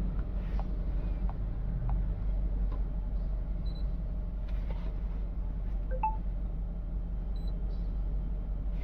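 Volkswagen Vento petrol engine idling with a steady low rumble while misfiring, the fault the scan traces to cylinder 1 and its injector circuit. A few faint short high beeps sound about four seconds in and again near seven and a half seconds.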